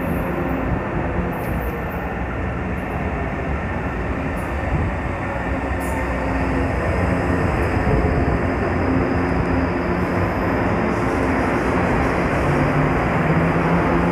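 Metro train pulling into the platform and running close past, with a steady rumble and a motor hum that steps down in pitch as it slows. It gets louder about halfway through as the cars draw alongside.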